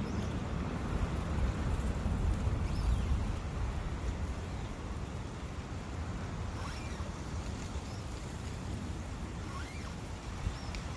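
Brook running steadily, with a low rumble swelling in the first few seconds and a few faint short high chirps in the second half.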